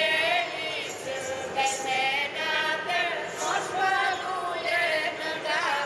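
A group of women singing together without accompaniment, a chant of long held notes that waver and slide between pitches.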